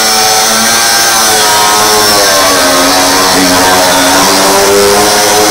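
Angle grinder grinding the weld seam on a steel patch panel, a steady loud whine whose pitch sags about halfway through as the disc is pressed into the metal, then climbs back.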